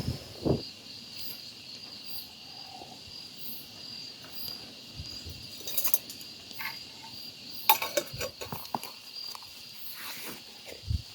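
Steady high-pitched insect chorus, with a few scattered clicks and knocks.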